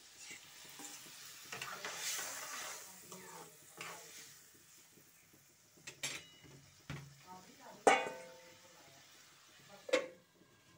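Metal spoon scraping eggs out of a steel bowl into a pan of simmering curry, which sizzles. The spoon then clinks sharply against the pan several times, loudest about eight seconds in. Just before the end a metal lid is set on the pan with a ringing clank.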